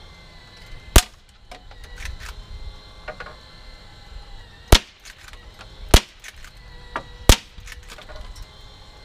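Four sharp shots from a Walther CO2-powered lever-action .177 air rifle, spaced unevenly across the stretch: one about a second in, then three more close together over the second half. Fainter clicks come between them.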